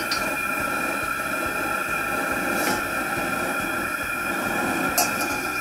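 Propane fish-fryer burner, rated about 58,000 BTU, running at full flame under a carbon steel wok: a steady rushing noise with a thin steady whistle, broken by a couple of brief faint clicks about three and five seconds in.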